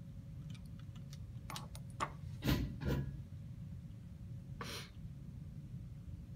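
Handling noise of a phone being shifted against a microscope eyepiece: a few faint clicks, then two knocks about half a second apart and a short scrape, over a low steady rumble.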